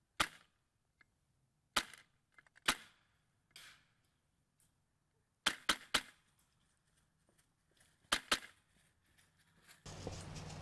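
Polar Star HPA-powered airsoft DMR firing single shots, about eight sharp cracks in irregular groups: a few spaced a second apart, then a quick triple and a quick pair. Steady outdoor field noise sets in near the end.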